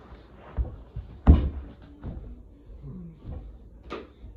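A few knocks and thumps of things being handled, the loudest about a second and a half in.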